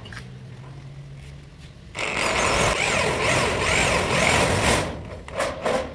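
Electric drill boring through a metal flat bar. It starts about two seconds in and runs for nearly three seconds with a wavering squeal, then gives two short bursts near the end.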